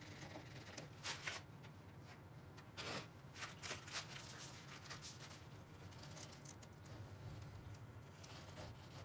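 Sandpaper being handled and pressed flat on a table: a few short bursts of rustling and scraping, mostly in the first half, over faint room noise.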